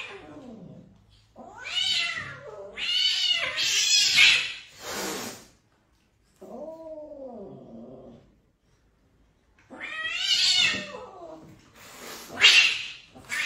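A cat yowling in several drawn-out, wavering cries, with harsh hissing bursts between them: the agitated, defensive noises of a cat in a fight.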